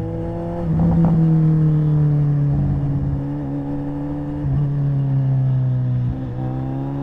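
Suzuki Hayabusa's inline-four engine running at low revs under light throttle, heard from the rider's position. Its pitch eases down and picks up again a couple of times.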